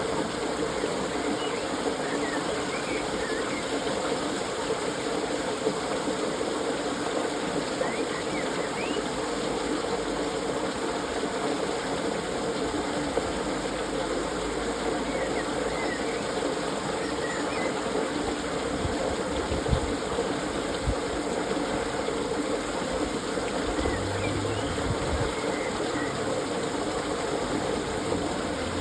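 Water leaking through the old wooden gates of a canal lock and splashing down in a steady, even rush.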